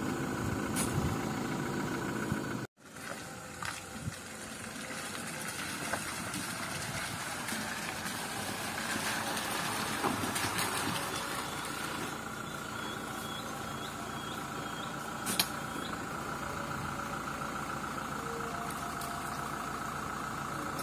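Toyota Hilux single-cab pickup's engine idling steadily, with one sharp knock about fifteen seconds in. The sound drops out for a moment about three seconds in.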